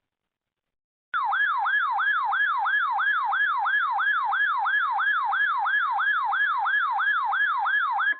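Electronic weather-alert siren tone warbling up and down about two and a half times a second, starting about a second in. It heralds a new severe thunderstorm warning, and a steady beep tone begins right at the end.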